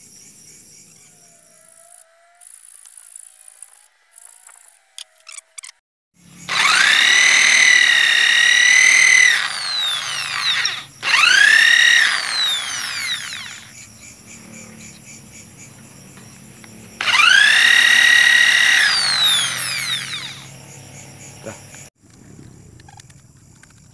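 Electric drill mounted in a drill stand, bit working into a wooden lure blank, whining three times: each run rises quickly to a steady pitch, holds for one to three seconds and winds down as the motor is let go.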